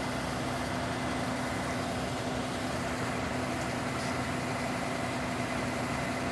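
Steady hum of an idling engine, with a few even, held tones over a constant low rumble.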